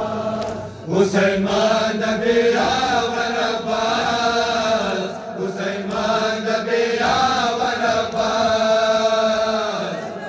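Noha chant, a Shia Muharram mourning lament, sung in long held lines. Faint sharp slaps of chest-beating matam come through it at intervals.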